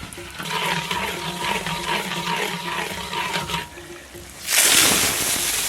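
Rock sugar and sugar water bubbling in hot oil in a wok as the caramel cooks, then a loud sizzle starts about four and a half seconds in.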